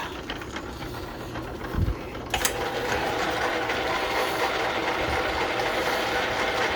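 1939 Sheldon lathe's gear train and leadscrew drive running. A clunk comes about two seconds in, then a louder, steady gear clatter as the carriage is driven on a fast thread pitch, a load the old machine strains under.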